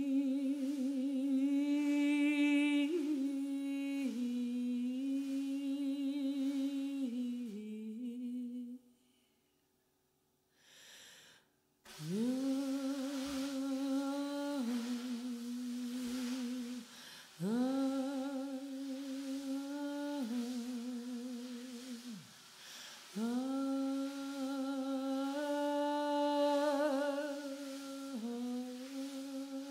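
A person humming long, held notes, each sliding up into pitch at its start and stepping between a few nearby notes. There are several phrases of a few seconds each, with a pause about a third of the way in.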